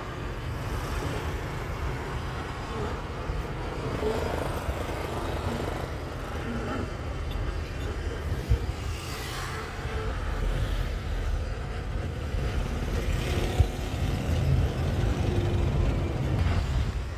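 Steady low rumble of road and engine noise inside a moving car, with a couple of brief knocks.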